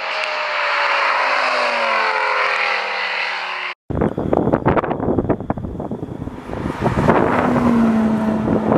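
Lamborghini engine, its note falling steadily in pitch for about four seconds before it cuts off abruptly. After the cut, a second engine runs under heavy wind noise on the microphone, and a steady engine hum comes in near the end.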